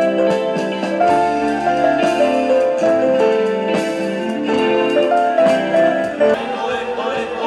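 Live band music over a PA: electric guitar and keyboard playing a repeating pattern of chords over drums.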